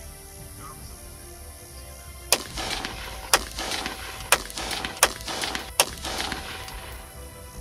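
Five rifle shots from an AR-15 fitted with an LMT 12.5-inch .223/5.56 upper, fired at roughly one a second with a short echo after each, over background music.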